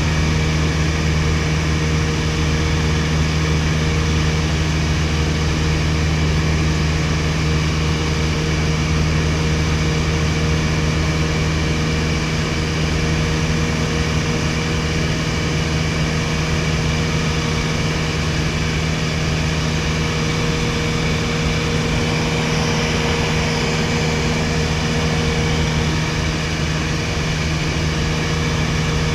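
Steady drone of a 1961 Piper PA-22 Colt's four-cylinder Lycoming engine and propeller in flight, heard from inside the cabin.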